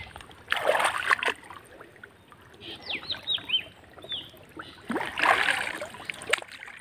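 Water splashing and sloshing in two bursts, about half a second in and again around five seconds in, as a fishing net is lifted and worked through shallow pond water. Between them a bird calls a quick run of about five short descending whistles.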